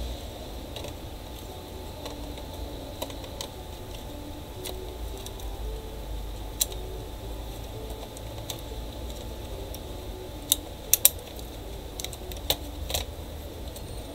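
Scattered clicks and taps of plastic and metal as a laptop hard drive is set into its bay and pressed home, with a quick cluster of sharper clicks about eleven seconds in.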